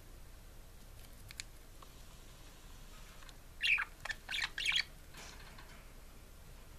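Pet budgerigar chirping: a quick cluster of three or four short chirps and warbles about halfway through, over a quiet background with a few faint ticks earlier.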